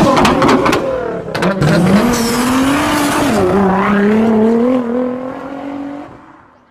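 Car engine revving, with several sharp exhaust pops (backfire) in the first second and a half, then accelerating: the pitch climbs, drops once about three seconds in as at a gear change, climbs again, and fades out near the end.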